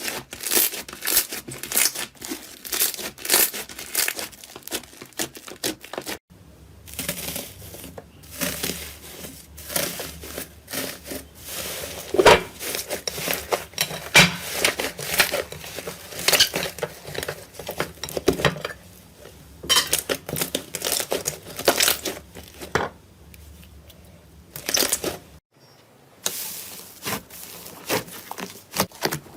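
Slime being squeezed, stretched and poked by hand: a dense run of crackling, clicking snaps. The sound breaks off abruptly twice and picks up again.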